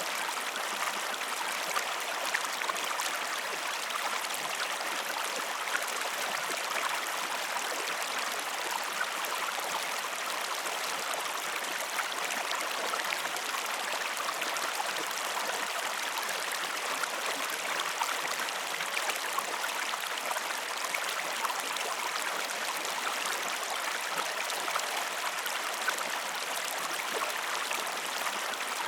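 Steady rushing of a flowing river or stream, an even wash of water noise with fine splashing and no breaks.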